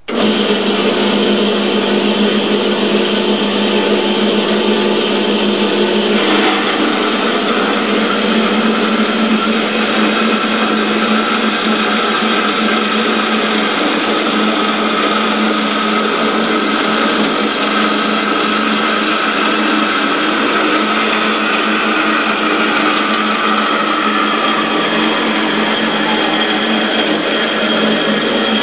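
Carolina horizontal metal-cutting band saw switched on and running steadily, its blade cutting down through square stock set corner-up in a V-block.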